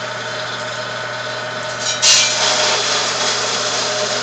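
Hobart Model 3430 coffee grinder's motor running with a steady hum; about two seconds in, coffee beans start going through the grinder and a loud grinding rasp joins in and continues.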